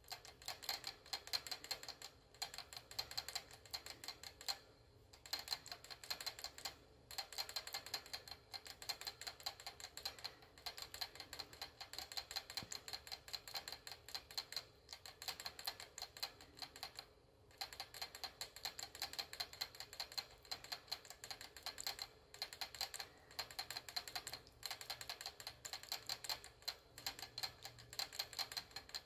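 Pet rat licking at the metal spout of a cage water bottle while drinking: fast, even clicking of the tongue on the sipper tube. It runs in long bouts broken by a few brief pauses.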